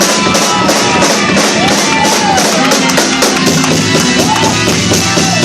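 Live church band music with drum kit, tambourine and guitar, keeping up a quick, steady beat.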